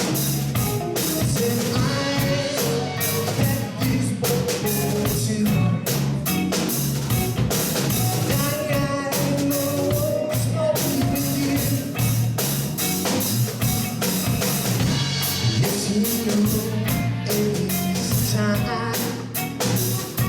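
Live rock band playing an instrumental passage: a lead electric guitar solos with bending, gliding notes over steady drums and bass.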